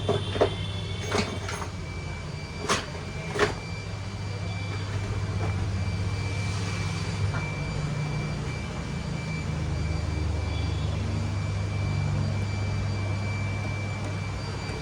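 About six sharp clicks and taps in the first three and a half seconds as the loose laptop hinge is worked on with a tool, over a steady low hum with a faint high whine.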